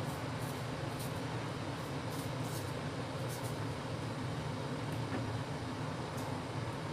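Steady low mechanical hum, like a fan or appliance motor running. Faint light ticks of a knife working a tomato come several times in the first half.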